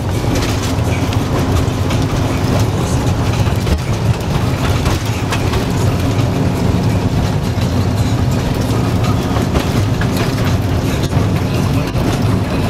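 Diesel engine of a TU4 narrow-gauge locomotive running steadily under way, a constant low drone heard from inside the cab, mixed with the running noise of wheels on rail.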